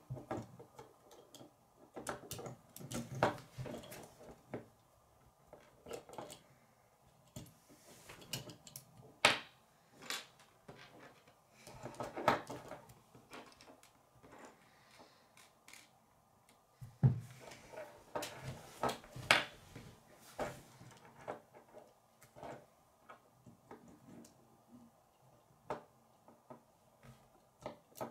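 Plastic K'nex rods and connectors being handled and snapped together, giving irregular clicks and knocks with quiet gaps between and a few louder snaps.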